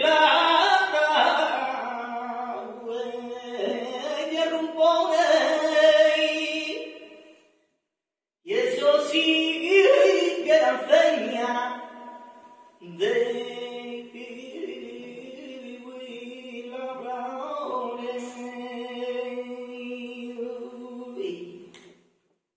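A male flamenco singer singing unaccompanied in three long, ornamented phrases, with a second of silence between the first two. The last phrase is softer and held long before it dies away.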